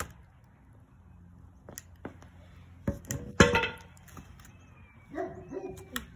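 Heavy knocks of wood and steel: an axe with a log stuck on its head is banged against a concrete driveway to free it. There are a few blows about three seconds in, the last and loudest with a short ring, then lighter knocks near the end.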